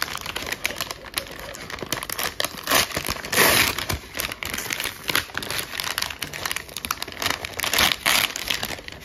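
Brown paper mailer envelope being torn open and crumpled by hand: continuous crinkling and crackling, with two louder bursts of tearing paper, one about three and a half seconds in and one shortly before the end.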